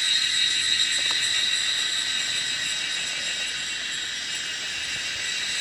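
A steady chorus of cicadas, a dense high-pitched buzz that holds without a break.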